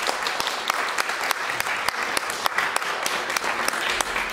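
Small audience applauding, with many individual hand claps heard distinctly over a steady wash of clapping.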